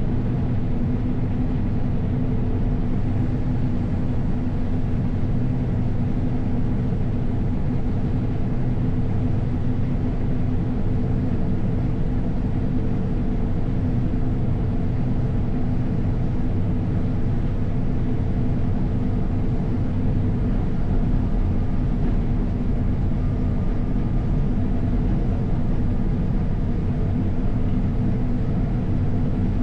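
Diesel engine of heavy harvest machinery running at a steady pace, a constant low drone with a steady hum and no change in speed.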